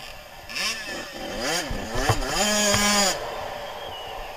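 Suzuki RM 85 two-stroke motocross engine revving under throttle, its pitch climbing and falling several times. It is held at high revs for about a second in the middle, then drops away.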